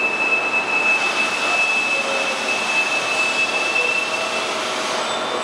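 Heller PFU 3 universal bed-type milling machine running: a steady noisy hiss with a high, steady whine on top that fades out near the end.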